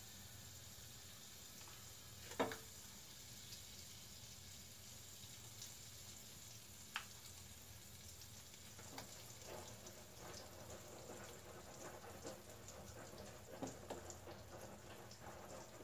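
Butter starting to sizzle in a hot aluminium pot: faint, scattered crackles that grow denser in the second half. A sharp knock about two seconds in and a lighter click about seven seconds in.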